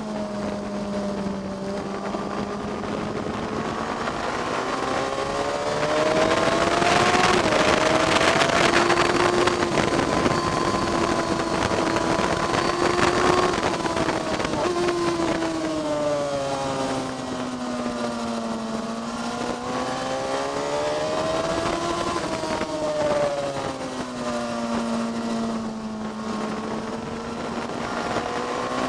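Motorcycle engine heard onboard on a racetrack lap. It rises in pitch and loudness under hard acceleration, holds high for several seconds, then drops as it slows for corners before pulling again. Wind rush grows with the speed.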